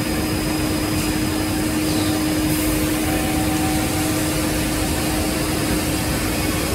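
Steady hum and hiss of a running Holztek CNC panel saw, with a constant low tone under the noise.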